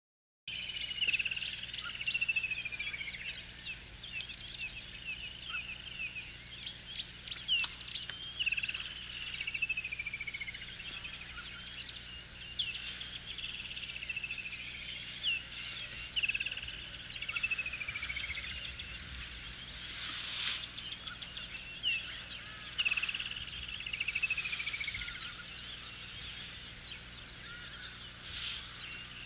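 Wild birds calling in the open: one bird repeats a whistle that slides down in pitch over about a second, every two to three seconds, among quicker chirps and trills from others.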